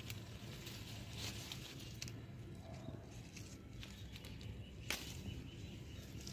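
Faint rustling of a Kashmiri chilli plant's leaves as ripe chillies are picked by hand, with a few soft clicks and one short sharp snap about five seconds in.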